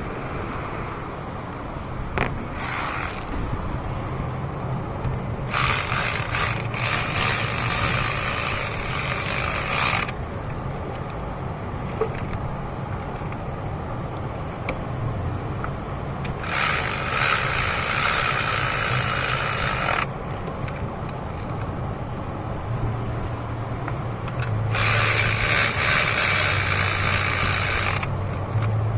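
A ratchet wrench run in three spells of a few seconds each, working fasteners on the engine during a spark plug and ignition coil job.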